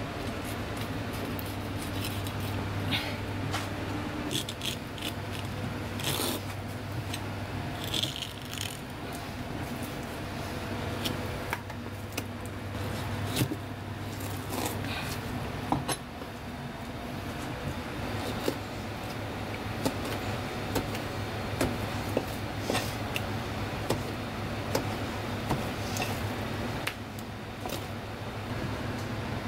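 Kitchen knife scraping and tapping on a cutting board while raw stingray wing is skinned and sliced, giving scattered sharp clicks and knocks. Under it runs a steady low hum.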